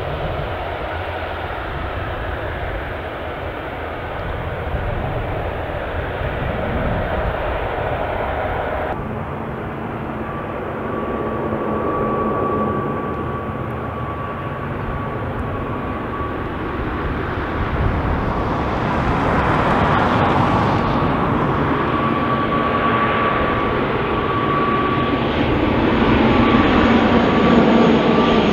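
Aircraft engine noise that changes abruptly about nine seconds in to an ATR 72 turboprop airliner on approach. Its propellers hold a steady hum and its engines grow louder as it closes in near the end.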